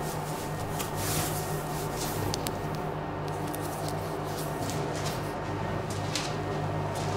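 A steady low hum under a faint hiss, with scattered soft clicks.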